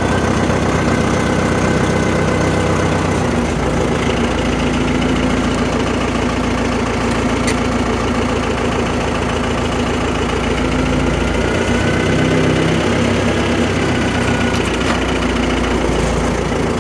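Case 580 backhoe's engine running steadily, with small shifts in its note a few seconds in and again later on.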